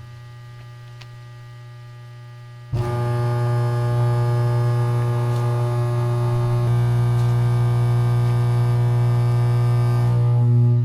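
Welder-powered electric arc between carbon electrodes: a low hum, then about three seconds in the arc strikes and buzzes loudly and steadily for about eight seconds, cutting off at the end.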